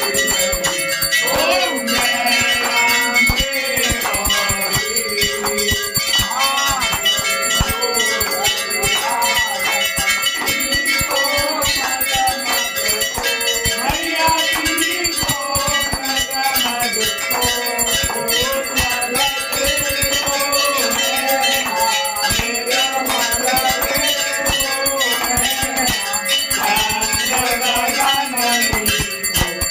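Hand-held temple bells struck rapidly and continuously during an aarti, with voices singing the aarti underneath.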